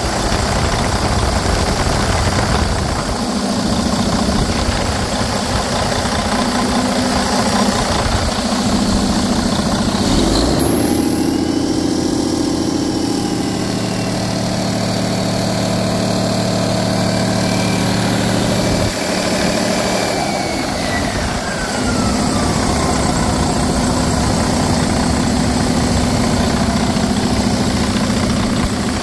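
Detroit Diesel DD15 inline-six diesel engine idling steadily. Its note changes from about ten seconds in until about nineteen seconds, and then a thin whistle falls in pitch.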